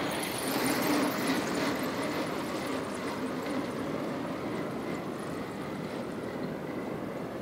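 Steady rushing noise of wind and sea, a little louder in the first two seconds.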